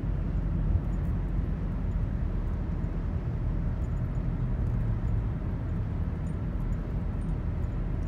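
Steady low rumble of road and engine noise inside a moving car's cabin, cruising along a multi-lane road.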